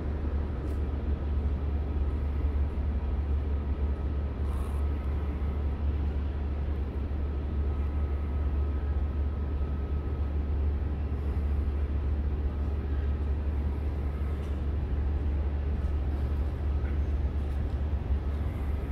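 Steady low rumble of downtown city ambience, with a faint thin steady hum over it.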